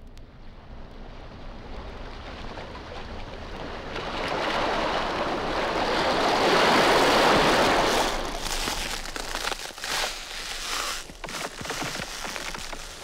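A rushing hiss swells to its loudest about seven seconds in, then turns uneven and crackly, with short dips.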